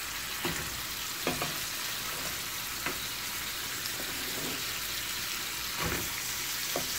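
Chicken wings deep-frying in a pan of hot oil with a steady sizzle. A few short knocks come from a metal slotted spoon against the pans as the fried wings are lifted out and dropped into the sauce.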